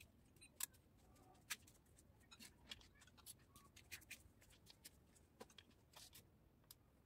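Faint, irregular clicks of a ratchet wrench being worked on a bolt of a stripped engine block.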